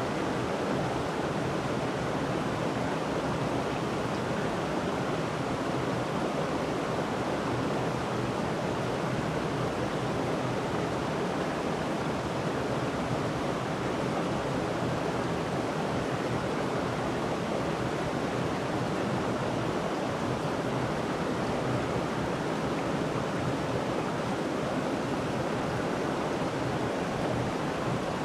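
River and waterfall water rushing in a steady, unbroken roar.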